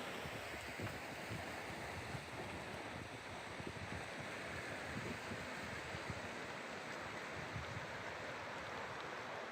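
Wind buffeting the microphone during a bicycle ride, an uneven low rumble over a steady rushing noise.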